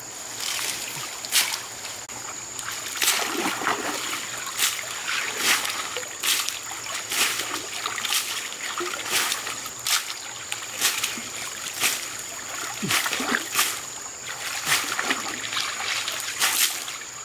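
Hands scooping wet sand and gravel in shallow river water, with irregular splashes about once or twice a second. A thin steady high tone runs underneath.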